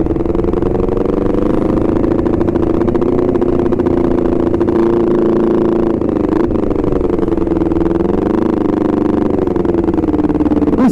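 Honda CBR250RR parallel-twin engine running under way at a steady pitch, easing off and picking up again about eight seconds in.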